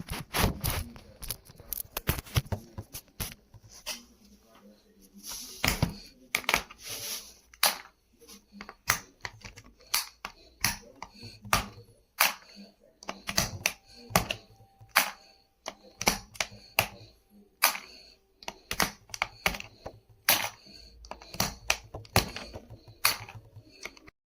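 Irregular sharp plastic clicks and clacks from a mechanical keyboard being worked on by hand, with short pauses between them.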